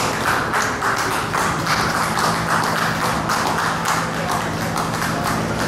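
Many hands clapping in a large echoing hall: a dense, uneven run of sharp claps, with a steady low hum underneath.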